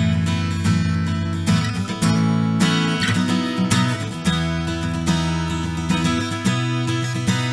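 Oscar Schmidt OG2SMA dreadnought acoustic guitar, unplugged and miked, being strummed through a series of chords that ring with a full low end.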